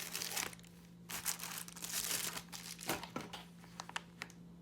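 Packaging being handled and crinkling in a few rustling spells, with a couple of light clicks about three seconds in before it quietens.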